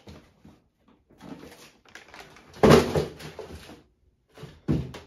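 Handling noise from a cardboard shoebox and its paper: irregular rustles and knocks, loudest about two and a half seconds in and again near the end.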